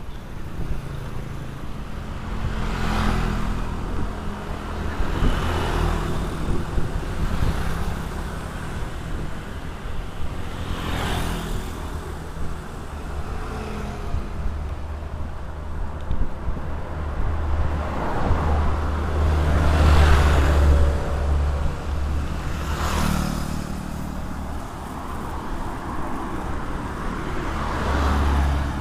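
Road traffic: a steady low engine rumble, with several vehicles passing one after another, each swelling and fading over a second or two.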